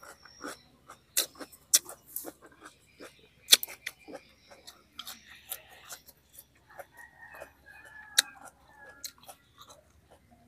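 A person chewing a mouthful of food: an irregular run of sharp clicks and smacks.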